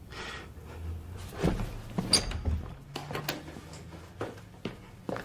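A wooden wardrobe door being opened and things inside it handled: a string of separate knocks and clicks, the sharpest about two seconds in with a brief high ring.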